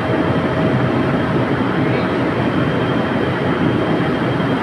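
Large ducted ventilation fan blowers running at full speed: a loud, steady roar of motor and moving air, with a steady whine that drops away about a second and a half in.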